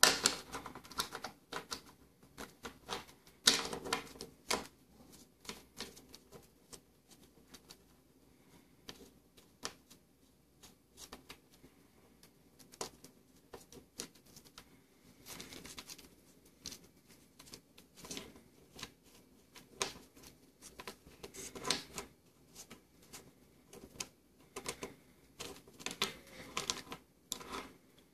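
Laser-cut wooden hinge worked back and forth by hand: irregular clicks and clacks of its wooden geared plates and bolts knocking together, in bunches with short pauses. The loudest clacks come near the start and about three to four seconds in.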